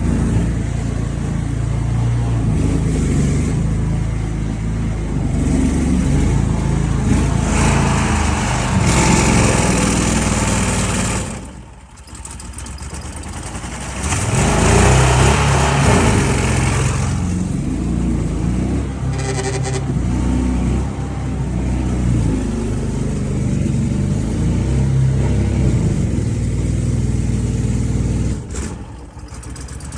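Boat motor running, with the sound dropping away briefly about twelve seconds in and again near the end.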